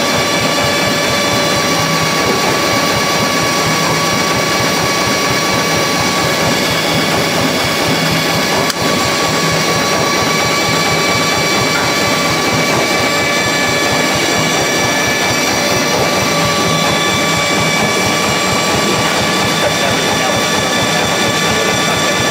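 A roughly 130-year-old generator running steadily at about 750 rpm under a light-bulb load, turned by its drive engine: a continuous mechanical run with a steady whine of several tones over it. Its brushes drag audibly because they are not seated correctly.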